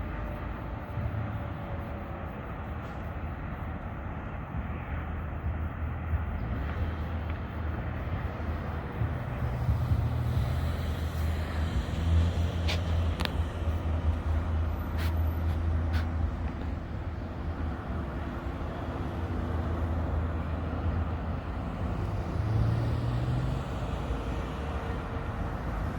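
An engine running steadily with a low hum, with a few sharp clicks near the middle.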